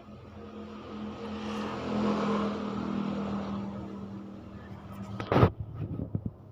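A motor vehicle passes by, its engine swelling to its loudest about two seconds in and then fading. Near the end comes one sharp, loud burst, then low, rumbling pulses like pigeons cooing.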